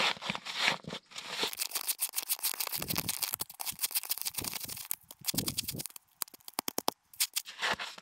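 Hands scraping and scooping granular old snow into a plastic bottle: a run of gritty crunching and scraping, with a quick series of small clicks about three-quarters of the way through.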